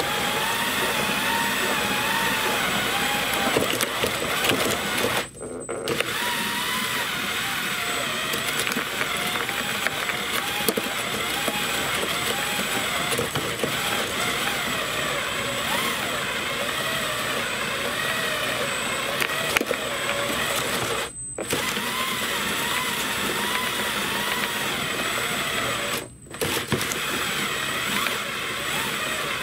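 Electric drill driving a 3D-printed twin-shaft compost shredder as its plastic cutters grind vegetable scraps, the motor's whine wavering up and down in pitch. The sound breaks off sharply three times for a moment.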